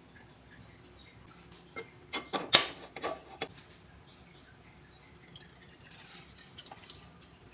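A few sharp knocks and clatter from kitchen handling about two to three seconds in, then water poured from a stainless steel tumbler into a wok, faint, with light drips and splashes.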